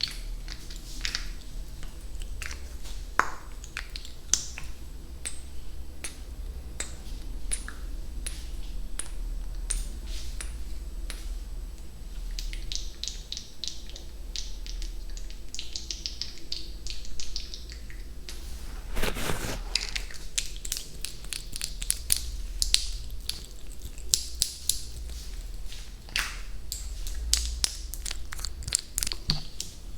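Close-miked ASMR trigger sounds: a run of sharp, crisp clicks, sparse at first and growing quicker and denser, with a short hissing rustle about nineteen seconds in.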